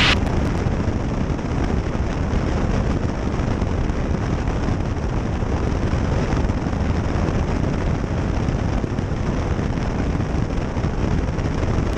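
Cessna 152's four-cylinder Lycoming engine and propeller running steadily with airflow noise, heard inside the cockpit in level cruise.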